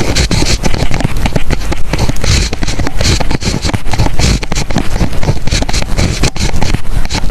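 Writing on paper close to the microphone: a pen or pencil scratching in quick, irregular strokes.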